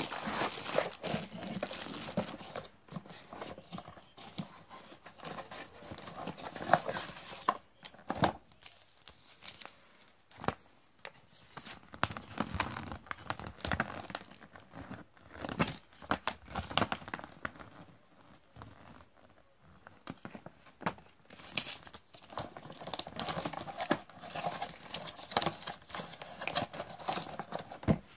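Clear plastic wrapping and a paper sheet crinkling and rustling in irregular bursts as a small hot air gun is unpacked by hand from its cardboard box.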